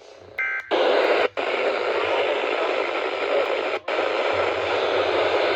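Radio receiver hissing with steady static after the broadcast voice drops out. A short beep comes about half a second in, then the hiss, briefly cutting out twice.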